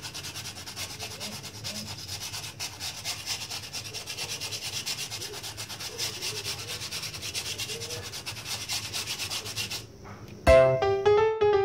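Sandpaper rubbed rapidly back and forth over a styrofoam piece, many quick strokes a second. It stops about ten seconds in, and piano music starts near the end.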